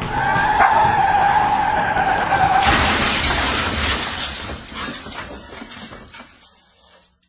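Car tyres screeching in a skid for about two and a half seconds, then a sudden crash with breaking glass that dies away over the next few seconds.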